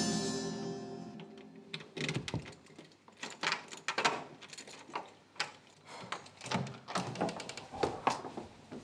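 A song fades out over the first second or so, then irregular clicks and knocks as a metal lever door handle is pressed and the latch clicks and the door swings open.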